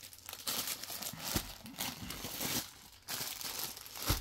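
Plastic wrapping on packed suit fabric crinkling and rustling in uneven waves as it is handled, with a short thump about a second and a half in and another near the end.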